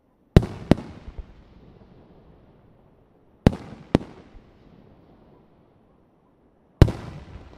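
Aerial firework shells bursting: five sharp bangs in three groups about three seconds apart, two close together, then two, then one. Each group trails off in a fading rumble.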